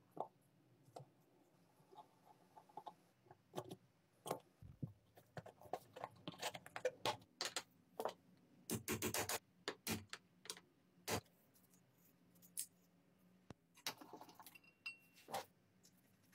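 Small metal parts of a rusty antique pencil sharpener clicking and knocking against each other and the vise as they are handled and taken apart. The clicks come at irregular intervals, with a quick flurry about nine seconds in.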